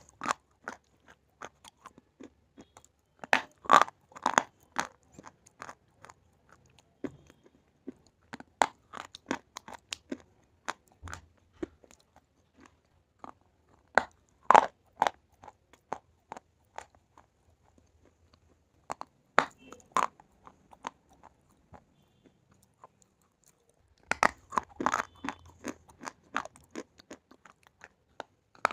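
Slate pencil being bitten and chewed: clusters of sharp, brittle crunches every few seconds, with fainter crunching of the pieces in between.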